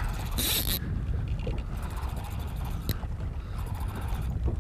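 Steady low rumble of wind on the microphone aboard a small fishing boat. A brief hiss comes about half a second in, and a single sharp click near three seconds.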